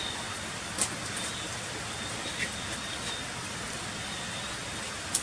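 Heavy rain falling steadily on stone and wet ground, a constant hiss with a few louder single drops or drips splashing now and then.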